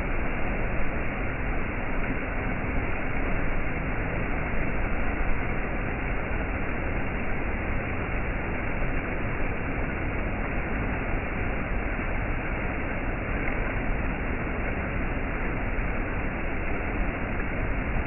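Shallow rocky stream rushing and splashing over small cascades, a steady, unbroken rush of water.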